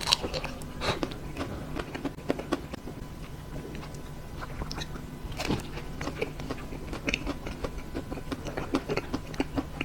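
Close-up biting and chewing of a chocolate-coated ice cream bar, its crisp chocolate shell crackling in many small crunches, with a few sharper bites near the start, about a second in and past the middle. A faint steady low hum runs underneath.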